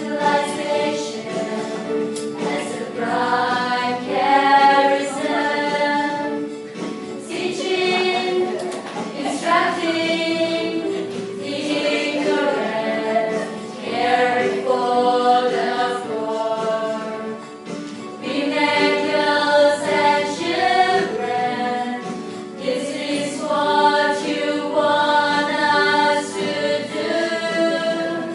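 Choir singing in slow phrases of long held notes, several voices together.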